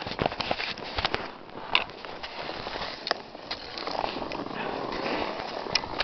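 Scattered clicks and knocks, then, from about four seconds in, a steady hiss of skis sliding over snow.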